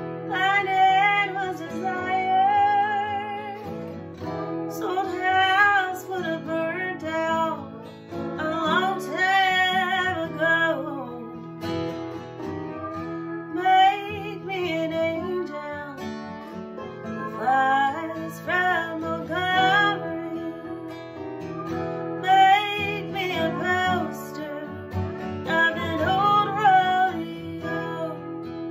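A woman singing with wavering held notes, in phrases a few seconds apart, over a strummed acoustic guitar and a lap steel guitar played with a bar.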